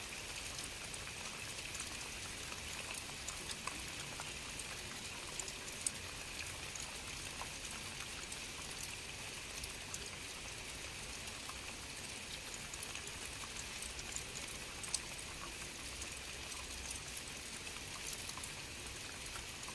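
Steady rainfall, with individual drops ticking sharply against the even hiss and a few louder drips standing out.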